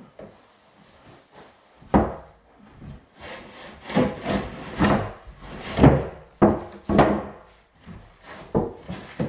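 Wooden floor panels scraping and knocking against each other and the joists as they are handled and laid back down. The irregular knocks and scrapes start about two seconds in and are loudest around the middle.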